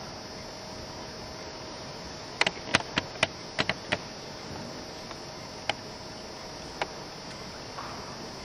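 A quick run of about eight sharp clicks, followed by two single clicks a second apart, over a steady background hiss with a faint hum.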